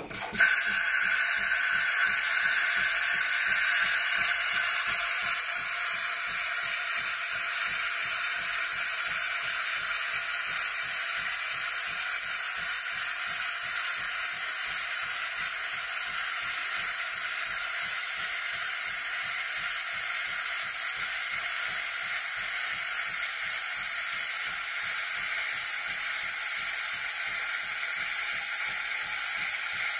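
Philips fully automatic coffee machine frothing milk into a glass: a steady hiss of steam and foaming milk that starts abruptly and keeps on, with a fast, even pulse underneath.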